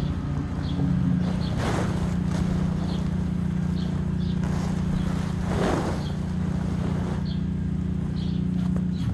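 Tent fabric rustling twice as it is shaken out and spread flat, over a steady low hum.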